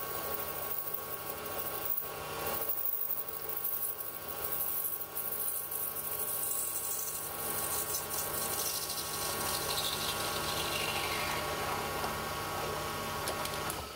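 Sieg C3 mini lathe running with a steady motor hum while a parting blade cuts into a spinning brass bar. The high hiss of the cut slides down in pitch through the second half.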